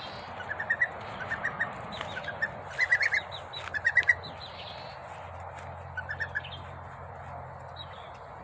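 A bird chirping in quick runs of three to five short notes, a run about every second, then a last run about six seconds in.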